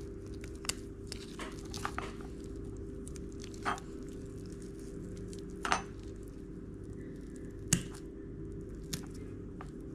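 Scissors cutting through the belly wall of a jurel (jack mackerel): a handful of scattered, short snips and wet tearing sounds, the sharpest about three quarters of the way in, over a steady low hum.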